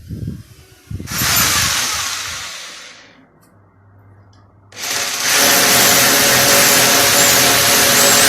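Electric power drill runs for about two seconds and winds down. After a short pause it starts again and runs steadily.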